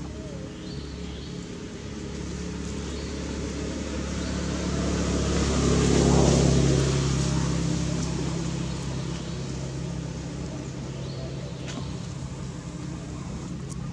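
A motor vehicle's engine passing by, growing louder to a peak about six seconds in and then fading away.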